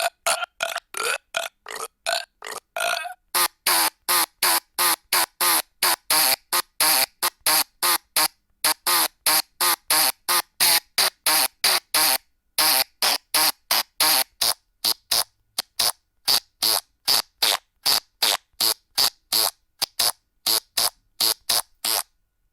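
Short burp and fart sound effects from a phone app, fired off one after another at about two to three a second, each cut off abruptly. There are brief pauses about three seconds in and about halfway through.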